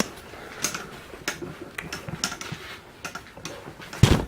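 Camera tripod being handled: a string of light, irregular clicks and taps, then one loud knock near the end.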